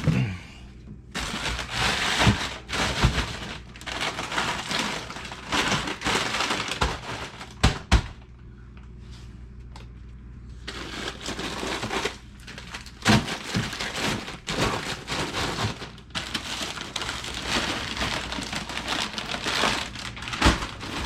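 Plastic packaging crinkling and rustling in long, dense stretches with scattered knocks as packages are handled. It stops for a few seconds about eight seconds in, then resumes. A faint low hum runs underneath.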